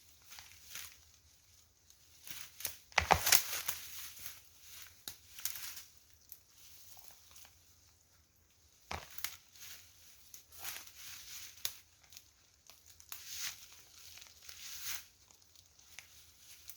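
Dry brush and branches rustling and crackling as firewood is gathered and handled, in irregular bursts with a few sharp snaps, the loudest about three seconds in.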